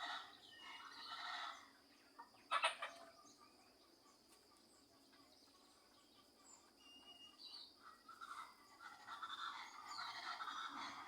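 Morning birdsong and chatter from several birds, with a short, loud call about two and a half seconds in. The chattering fades in the middle and swells again near the end.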